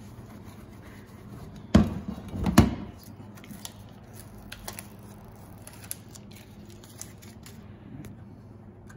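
Two sharp knocks about two seconds in as the emblem parts are handled, then light ticks and crackles as the blue backing film is peeled off the adhesive back of the new Ford grille emblem.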